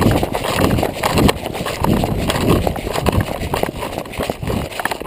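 Footsteps of an airsoft player moving quickly on foot, about two steps a second, with rustling from gear and clothing over them.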